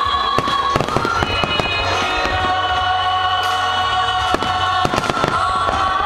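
Fireworks bursting in a rapid string of sharp bangs, over music with sustained tones playing throughout.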